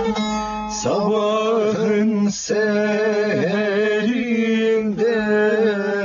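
Bağlama (long-necked Turkish saz) playing an anonymous Tokat folk tune, with a steady low drone under the plucked melody. From about a second in, a voice hums the melody along with it without words.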